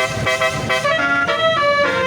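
Bus basuri musical air horn ("telolet") playing a melody: a quick run of changing notes, then longer held notes.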